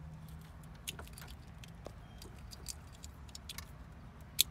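Small plastic clicks and rattles of a radio wiring-harness connector and loose wires being handled, with one sharp click near the end.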